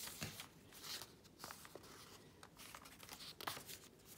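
Paper pages of a small handmade journal being turned by hand: faint, repeated soft rustles and brushes of paper.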